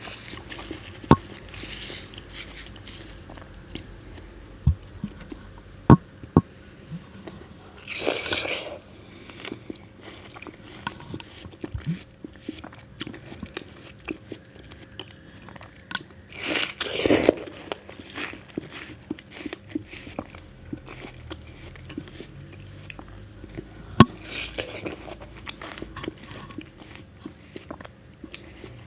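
Close-miked biting and chewing of watermelon: wet crunches and sharp clicks of bites into crisp flesh. There are two louder, longer stretches of crunching about eight and seventeen seconds in.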